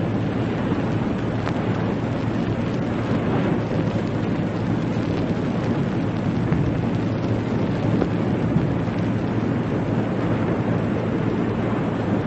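Steady wind and sea noise on the open bridge of a warship under way: an even, low rushing that holds without change.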